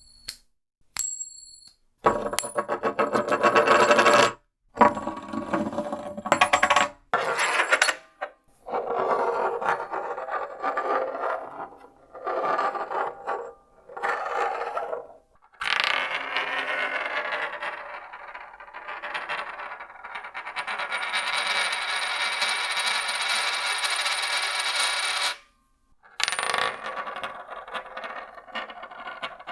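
A coin flipped, dropped, spun and rolled on a hard surface: a series of separate metallic ringing clatters. The longest, near the middle, lasts about ten seconds.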